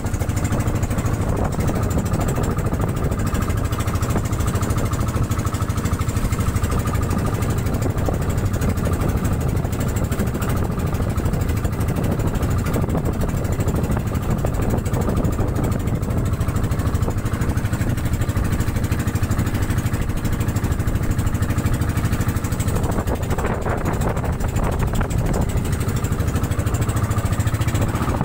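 Outrigger motorboat's engine running steadily while the boat is under way.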